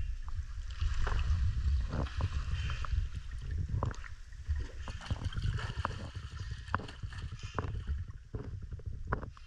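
Cenote water lapping and sloshing right at a microphone sitting at the surface. A churning low rumble runs under many small splashes and ticks.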